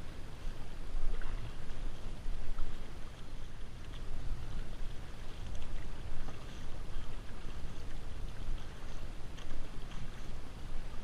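Outrigger canoe being paddled: irregular splashes of paddle blades entering the water and water rushing along the hull, over a steady low rumble.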